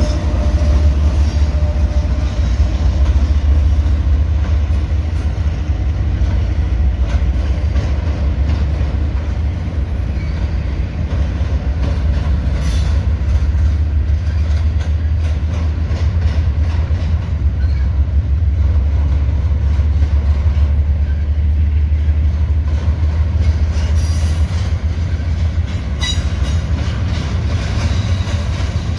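Union Pacific intermodal freight train passing close by, with a steady low rumble. At first the mid-train diesel locomotives pass, then double-stack container cars roll by on the rails with a few sharp clicks in the second half.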